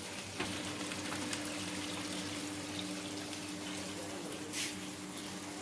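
Hot cooking oil sizzling steadily in a commercial deep fryer and on a flat-top griddle, with a brief sharper hiss about four and a half seconds in. A steady low hum starts about half a second in.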